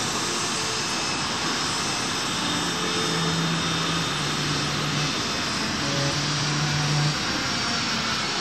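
Boeing 727 freighter's three Pratt & Whitney JT8D jet engines running as the jet taxis, a steady rushing jet noise.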